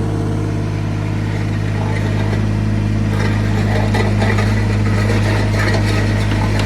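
Yanmar 3TNV74F three-cylinder diesel of a mini excavator running steadily. From about three seconds in, irregular clattering and knocking rises over the engine.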